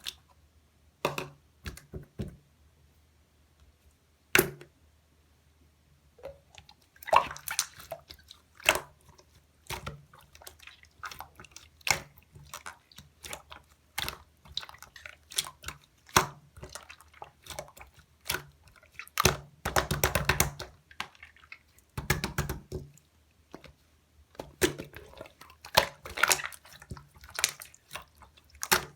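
Hands playing with slime: squishing, pressing and folding it, with irregular sharp clicks and wet crackling pops of trapped air. The first few seconds hold only a few clicks, after which the crackling comes thick and fast.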